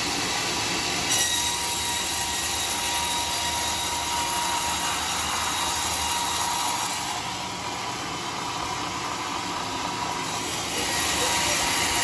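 Homemade band sawmill's blade cutting through a large teak log: a steady, high, squealing hiss of the blade in the wood over the machine's running noise. There is a short sharp knock about a second in, and the sound eases a little past the middle and rises again near the end.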